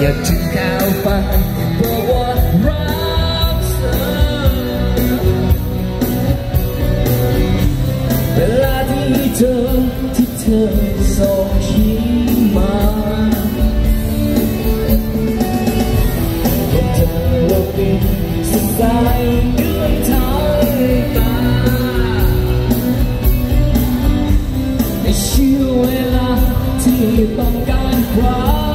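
Live amplified pop song: a man singing into a microphone over electronic keyboard backing, played through PA speakers in a large hall.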